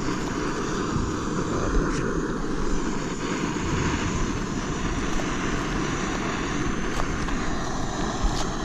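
Camping stove burner running steadily with a constant rushing roar, and a few faint clicks.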